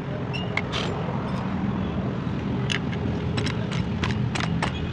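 An engine running steadily, with a scatter of short sharp clicks and taps over it.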